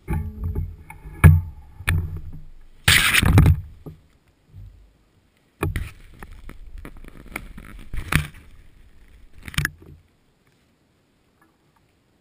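Handling noise from a helmet-style action camera in its housing on a motorcycle mount: muffled bumps, a loud scrape, then a run of sharp clicks and rubbing, all stopping about ten seconds in.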